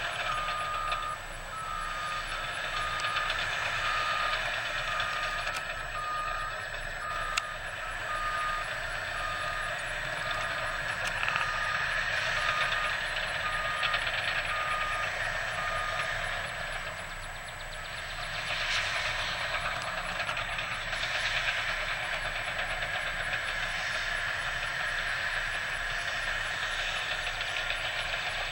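Back-up alarm of a heavy construction machine beeping about once a second while it reverses, stopping about 16 seconds in. Diesel engine noise of the earthmoving equipment runs underneath throughout.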